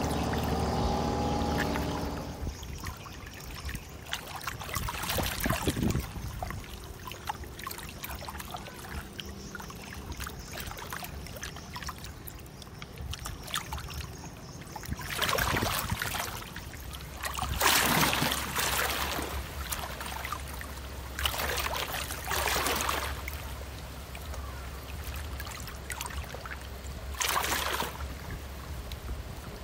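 Low steady rumble of ships' engines across the water. A pitched engine drone cuts off about two seconds in. Several loud bursts of rushing noise come in the second half.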